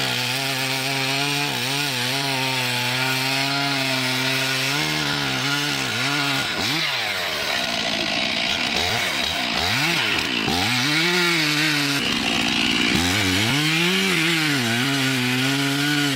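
Chainsaw engine running loudly under load, steady for about five seconds, then rising and falling in pitch again and again as it revs and bogs in the cut.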